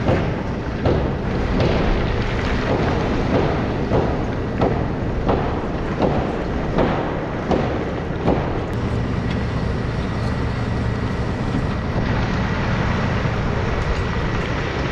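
Takeuchi TB2150 excavator's diesel engine running steadily. For the first half there is a regular knocking, about three knocks every two seconds, which then stops and leaves the engine drone with a thin steady whine.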